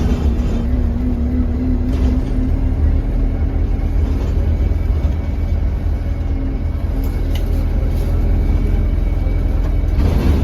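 Inside an Alexander Dennis Enviro200 single-deck bus under way: steady low engine drone with a tone that climbs slightly over the first few seconds, and a faint, thin high whistle from the turbocharger, which the uploader puts down to a turbo leak.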